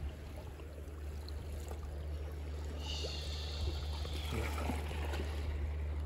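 A steady low hum, with water trickling and hissing from a bigfin reef squid as it is hoisted out of the sea on an egi about three seconds in.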